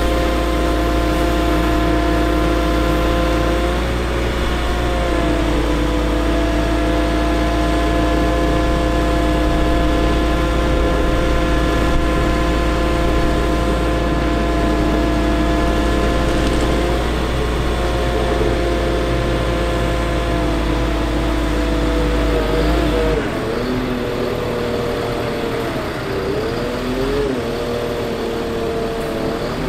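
Caterpillar C7 diesel engine of a Ford F750 bucket truck running, with the hydraulic system working the Hi-Ranger TCX-55 boom: a steady whine made of several pitches. The whine steps down about 4 seconds in and again near 17 seconds. Over the last several seconds it wavers up and down and the low engine drone falls away.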